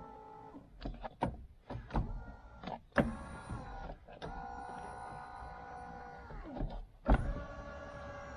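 Electric motors of a power car seat whirring as the adjuster switch is worked, the seat moving up and down. The motor runs in several stretches of a second or two, one winding down as it stops, with clicks from the switch and seat track between them.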